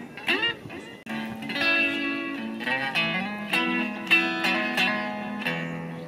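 Electric guitar played through a small battery-powered amplifier: a few notes bent up and down about half a second in, a brief pause, then picked notes ringing over a held low note.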